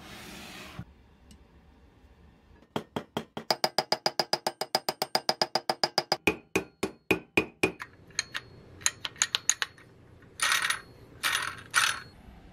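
Small hammer tapping rapidly on the end of a toy truck's steel wheel axle, sharp ringing metal taps at about eight a second that slow to a few spaced taps. Three short scuffing noises follow near the end.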